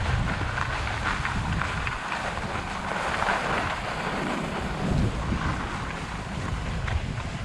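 Wind rushing over a GoPro's microphone during a ski descent, with skis hissing and scraping over groomed snow.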